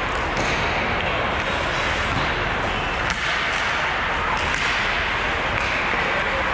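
Ice hockey play at rink level: a steady hiss of skates on ice and arena noise, with a few sharp clacks of sticks and puck.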